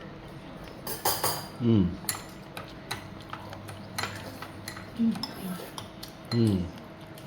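Spoons, bowls and dishes clinking and knocking at a shared hotpot meal, a scatter of separate sharp clicks, with a few short voice sounds in between.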